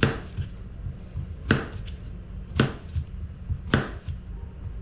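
Kitchen knife slicing through a vegetable on a paper plate, four sharp cuts about a second apart.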